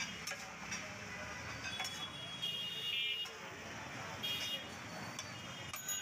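Metal spatulas clinking and scraping on a large flat steel griddle as stir-fried vegetables are tossed, over busy background noise with faint voices. Brief high-pitched tones come about two and a half and four seconds in.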